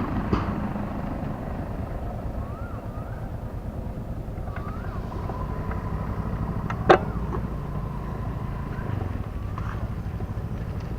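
A steady low motor-like hum, with one sharp click about seven seconds in.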